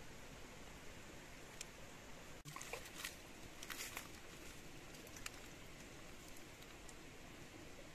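Faint steady outdoor hiss with a few light clicks and taps a third of the way in, and one more a little later, from a spoon and food being handled over wooden bowls while serving.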